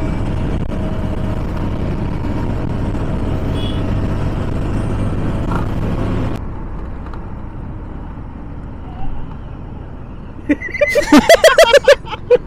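Motorcycle riding at highway speed: a steady engine drone with road and wind noise. About six seconds in it cuts suddenly to a quieter, slower ride, and near the end a loud voice comes in.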